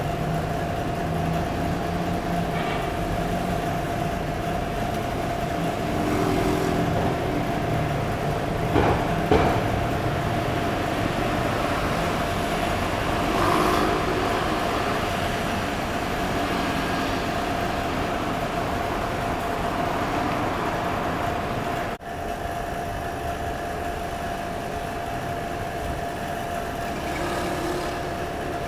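Steady road-traffic and street noise with a constant mid-pitched hum, and a couple of short knocks about nine seconds in.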